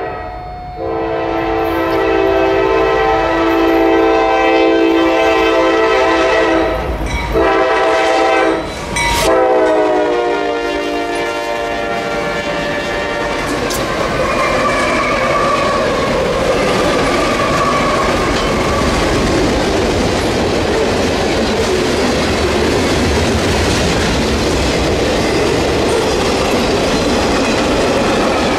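Freight locomotive's multi-chime air horn blowing a long, long, short, long crossing pattern, its pitch dropping as the locomotive passes. Then the steady rolling rumble of the train's cars going by.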